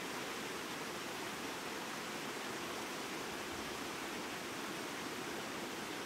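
Small rocky stream running through a short chute between boulders: a steady, unbroken rush of water.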